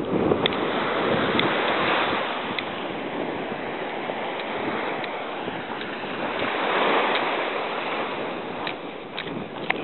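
Small waves breaking and washing up onto a sandy beach, the surf rising and falling in slow swells.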